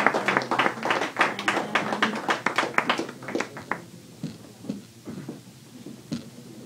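Small audience clapping after a song, thinning out and dying away about four seconds in, followed by a few stray claps and small knocks.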